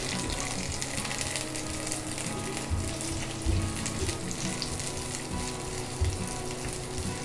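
Sliced onions sizzling in hot mustard oil in a wok as they are stirred with a silicone spatula, with a few low thumps from the spatula and pan.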